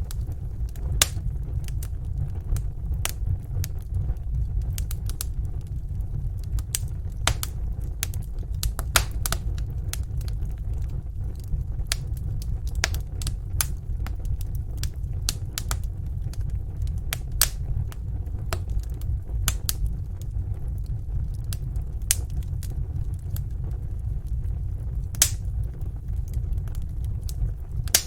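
Wood fire burning in a fireplace: irregular crackles and sharp pops over a steady low rumble.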